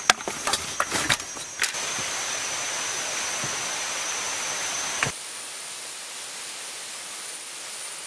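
Bags and gear knocked about in a car's boot, a string of sharp knocks in the first couple of seconds, over a steady high-pitched insect drone and an even hiss. About five seconds in it cuts to a quieter hiss with a different, higher insect tone.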